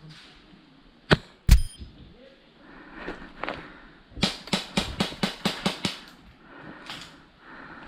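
Airsoft rifle shots: two sharp cracks about a second in, then a quick string of about nine semi-auto shots, roughly five a second, a few seconds later.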